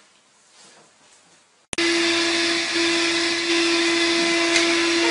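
Faint, quiet room sound, then about a third of the way in a sudden cut to a loud electric appliance motor running steadily: a rushing hiss with a constant hum.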